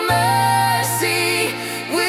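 Ambient electronic music: a gliding melodic lead over a sustained bass note.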